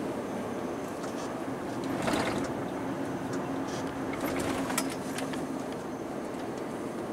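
Renault Range T520 lorry's 13-litre six-cylinder diesel droning steadily, heard from inside the cab on the move, with road and tyre noise. A brief louder rush comes about two seconds in, and a run of sharp clicks and rattles follows around four to five seconds.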